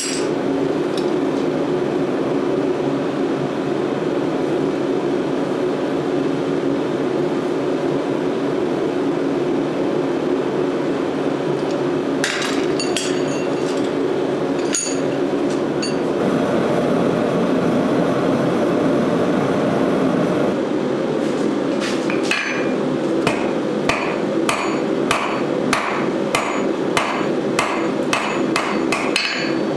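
Steady roar of a forge, with a few scattered metallic clinks about halfway through. In the last third, a hammer strikes a red-hot steel bar on an anvil in a regular rhythm of about two blows a second.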